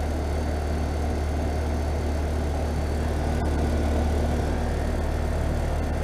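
2018 3.5-ton Carrier Comfort Series heat pump outdoor unit running in heat mode, its coil slightly frosted over. There is a steady low hum with the even rush of the fan over it.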